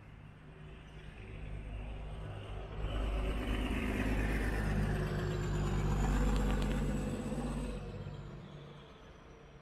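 A city bus passing close by: engine hum and tyre noise swell about three seconds in, peak over the next few seconds, then fade as it drives away.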